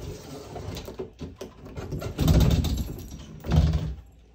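White bifold closet doors being pulled open by hand, with two dull bumps about two and three and a half seconds in, the first longer.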